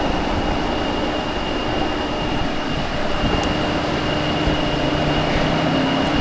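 Steady mechanical hum and noise with a faint high-pitched whine and a low steady tone, with two faint clicks about halfway through and near the end.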